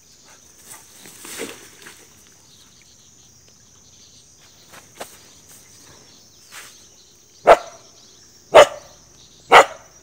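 Small dog barking three sharp times, about a second apart, near the end.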